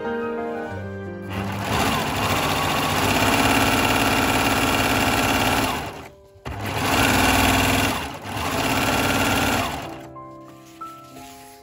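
Serger (overlock machine) running as it stitches along a fabric edge, going in runs with brief stops about six seconds in and again around eight seconds, then winding down near the end.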